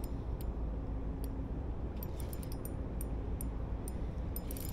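Spinning reel giving a few scattered clicks as a hooked channel catfish is played, the clicking thickening into a quick run near the end, over a steady low rumble.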